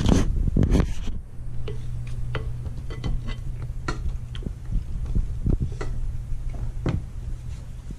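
Silicone spatula stirring thick applesauce in a glass mixing bowl, with irregular clicks and taps as it knocks against the glass. The knocks are loudest and closest together in the first second.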